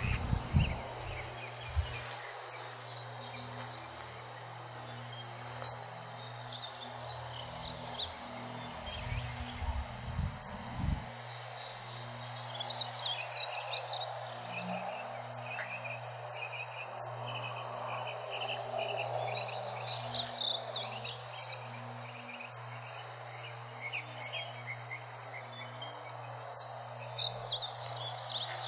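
Insects chirping steadily, with birds chirping and singing at intervals, most in the second half.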